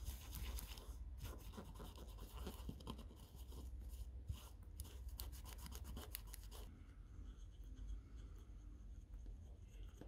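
A tissue rubbing back and forth over a circuit board and its Kapton tape, a faint scratchy wiping in quick irregular strokes that eases off about two-thirds of the way through.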